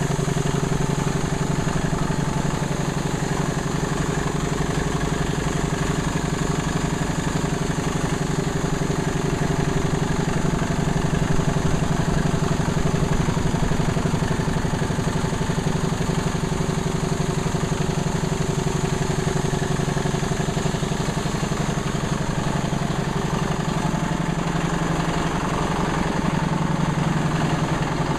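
1930 Atlas Diesel type C2DKV monoblock compressor, a diesel engine and air compressor in one casting, running steadily with a fast, even beat.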